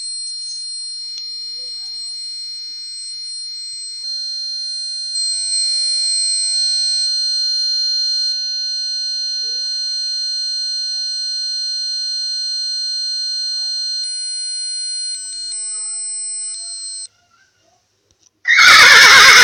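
An electronic alarm-type ringing effect played from a sound-effects app: a steady cluster of high tones that holds without changing pitch, stepping louder and softer a few times, then stopping suddenly. About a second and a half later a different, very loud noisy effect bursts in near the end.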